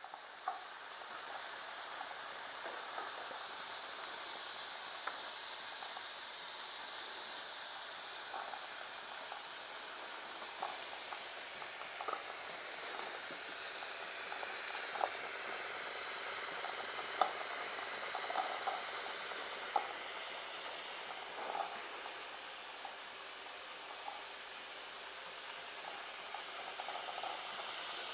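Wilesco D14 model stationary steam engine hissing steam steadily, the hiss swelling louder for a few seconds around the middle, with faint scattered ticks underneath.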